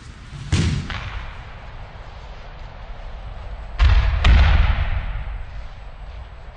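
Aikido breakfalls on a dojo mat. A thud of a body landing comes about half a second in, then a louder double slam about four seconds in as the thrown partner flips over and hits the mat, dying away over about a second.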